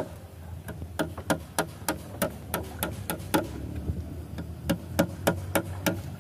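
Sharp knocks, about three a second in a fairly even rhythm, from work on the bamboo poles of a pond platform being built.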